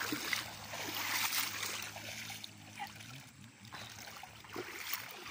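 Shallow river water sloshing and splashing around a person wading, a few splashes near the start and again near the end, over the stream's steady flow.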